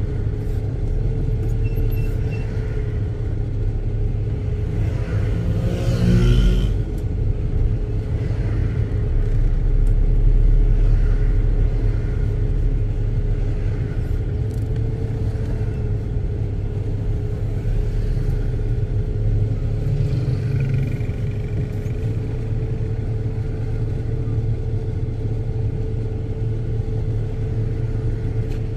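Car engine and road rumble heard inside the cabin while driving slowly, with a constant hum. The sound swells briefly louder about six seconds in.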